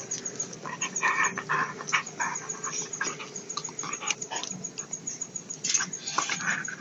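Two dogs making short, irregular noises close up as they mouth and nibble at a hand through a fence.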